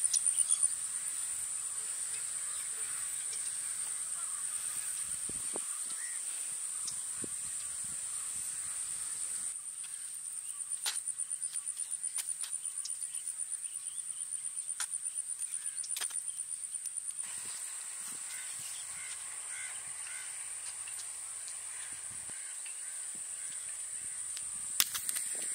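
Insects chirring in a steady high-pitched drone, with birds calling and a few faint clicks scattered through; a sharp click near the end.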